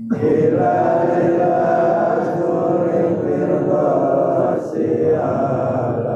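Men's voices chanting Arabic dhikr together after the Friday prayer, in long held phrases. There is a brief break for breath near five seconds in.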